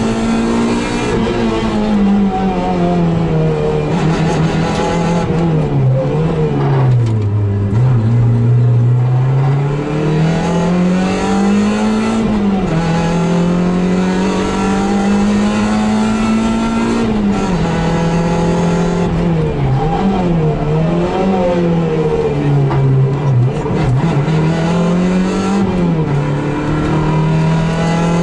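Suzuki Swift GTi MKII rally car's 1.3-litre twin-cam four-cylinder engine, loud inside the cabin, driven hard through the gears with the note rising and falling. It drops to its lowest about seven seconds in as the car slows, then climbs again, with a run of quick drops and rises in the second half.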